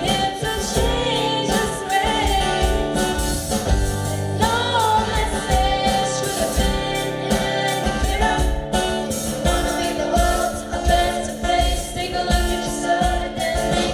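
A group of students singing a song together, led by a girl on a microphone, over an instrumental accompaniment with a steady beat.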